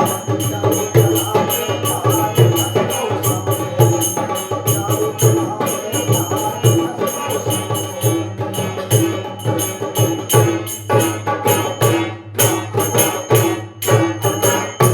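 Bundeli dhimaryai folk music with jingling hand percussion keeping a quick, steady beat.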